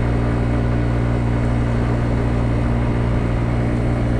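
Kymco Agility 50cc carbureted scooter engine running at a steady pitch, pulling easily up a gentle hill at about 25 mph.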